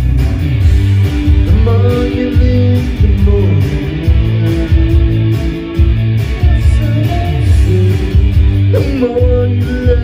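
Karaoke backing track playing, with guitar over a steady bass beat and a man's voice singing along into a microphone at times.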